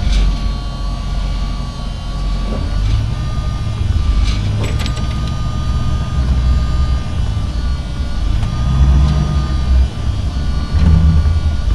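Semi truck's diesel engine running, a heavy low rumble that rises and falls, with a steady high whine over it and a few sharp clicks about halfway through.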